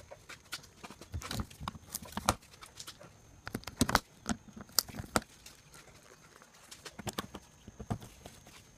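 Irregular clicks and knocks of plastic fastening clips being pushed in and given a half turn to lock the engine's plastic undercover to the bumper. The clicks come thickest in the first few seconds and thin out later.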